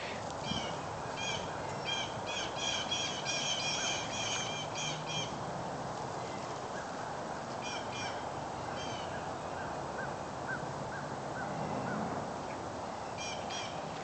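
A bird calling in rapid runs of short, high notes: a long run over the first five seconds, a shorter one around eight seconds and another near the end.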